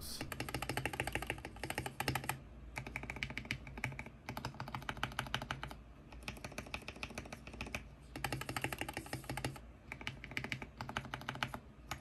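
KBD67 Lite mechanical keyboard's stabilized keys, the spacebar and Shift among them, pressed rapidly over and over in quick runs of one to two seconds with short pauses between. This is a sound test of its factory pre-lubed polycarbonate stabilizers.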